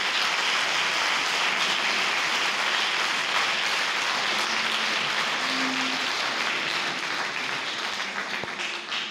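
Audience applauding: steady, dense clapping that eases off near the end.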